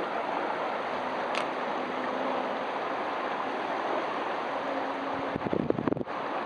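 Steady rushing noise of running water, with a short louder burst near the end.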